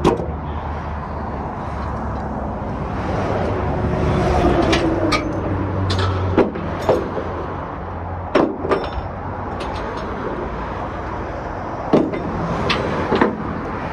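Metal hooks and ratchets of tie-down straps clanking and clinking against a flatbed car trailer as the straps are handled, about ten sharp irregular knocks over a steady low rumble.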